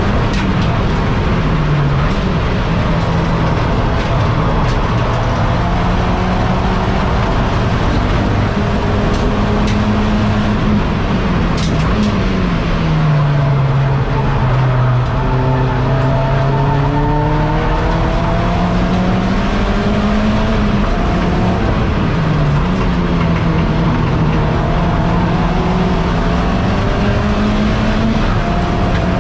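SEAT Leon Cupra race car's engine heard from inside the cabin under hard driving. Its pitch climbs through the gears with quick drops at upshifts about a second and a half in and again near the end. It falls away around twelve seconds in as the car slows for a corner, then climbs again.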